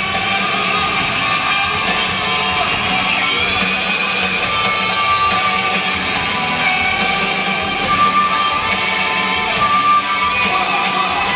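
Loud music played over a hall's sound system for a stage performance.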